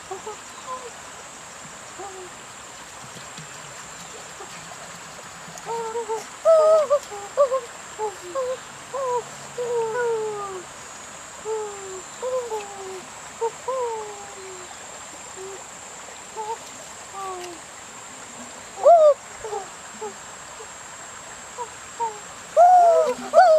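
Many short hooting animal calls, each gliding up or down in pitch, coming in quick irregular succession from about five seconds in, over the steady trickle of a shallow stream.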